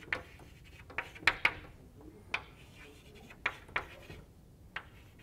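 Chalk writing on a chalkboard: irregular sharp taps and short scratches as the chalk strikes and drags across the board, about eight strokes.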